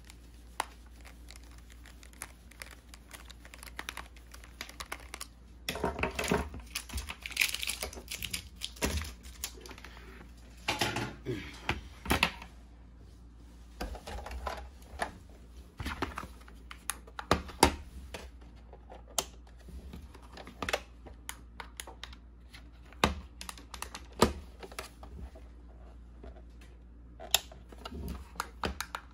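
Hands handling a plastic toy remote-control pickup truck and its hand-held remote: irregular clicks, taps and plastic knocks, with two busier stretches of rattling and rubbing about six and eleven seconds in.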